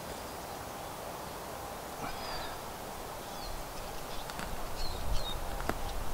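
Woodland ambience with a few short bird chirps and a couple of light knocks; a low rumble sets in about halfway through.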